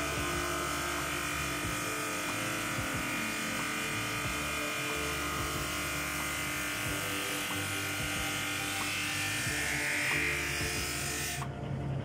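JIB 21106 drum sander running under load as its conveyor carries a plywood panel across the grain beneath the sanding drum: a steady motor hum under a loud hiss of coarse sandpaper, about 80 grit, cutting the wood. Near the end the hiss cuts off suddenly as the panel clears the drum, and the machine's hum carries on.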